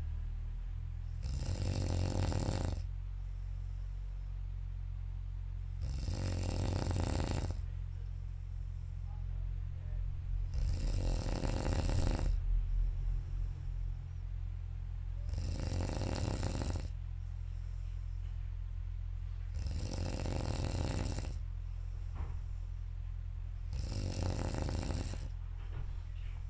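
A sleeping person snoring loudly: six long snores, evenly spaced about every four to five seconds, over a steady low hum.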